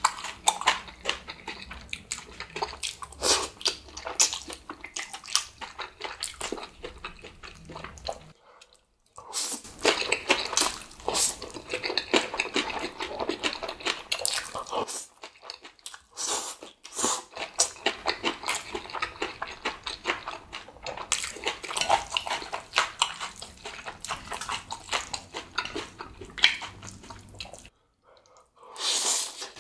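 Close-up eating sounds: a person slurping and chewing saucy black-bean instant noodles (Chapagetti), a dense run of wet slurps and smacks, with three short pauses.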